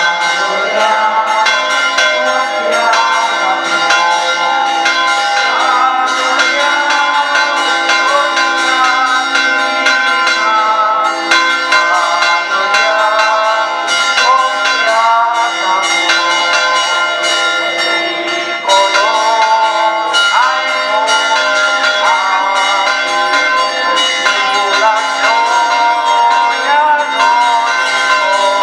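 Church bells pealing continuously, many strokes in quick succession with their tones ringing on over one another.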